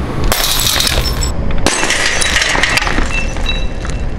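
Uncoated glass cookware smashing on asphalt after a drop from a roof: a loud shatter about a quarter second in, a second crash about a second and a half in, then shards tinkling as they scatter and settle.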